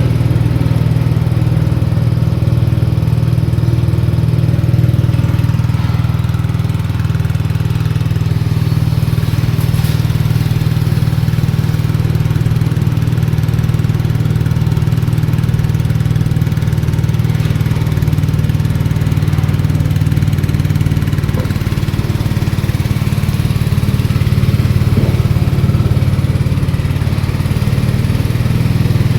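MAR-C A200 coconut milk press running steadily on its small engine while pressing grated coconut, a loud, even, low hum that stays unchanged throughout.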